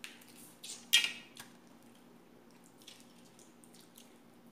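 Wet slurping and sucking sounds of shrimp being eaten by hand: a loud slurp about a second in, then a few smaller smacks.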